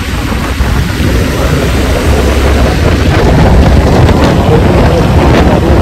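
Wind buffeting the microphone on a moving scooter, a loud low rumble over the vehicle's engine and road noise.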